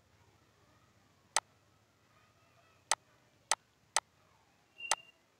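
Five sharp computer mouse clicks at uneven spacing, over quiet room tone.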